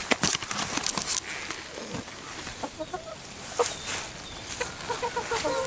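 Chickens clucking in short, low notes, more of them near the end, with a few sharp clicks and rustles in the first second.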